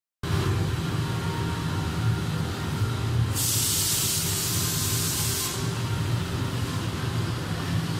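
Steady low hum of running machinery, with a burst of loud hissing lasting about two seconds in the middle.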